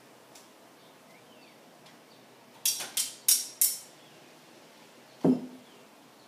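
Four quick, sharp clacks about a third of a second apart, then one heavier thud with a short low ring about two seconds later.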